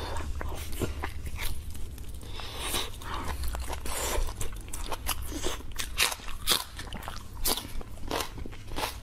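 Close-miked eating sounds: biting into and chewing braised meat with its skin, a dense run of sharp wet clicks and smacks throughout.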